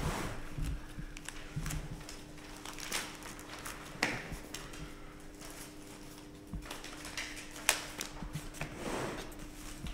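Paper rustling and scattered light clicks and knocks as letters are handled, over a steady low hum.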